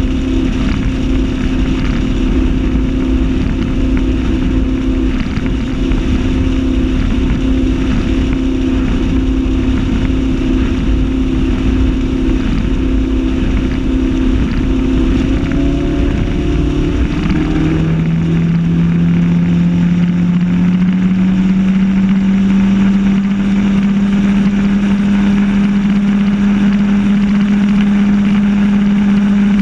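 RIB's engine running steadily under way, with water and wind rushing past. A little past halfway the engine note drops sharply, then climbs slowly and holds.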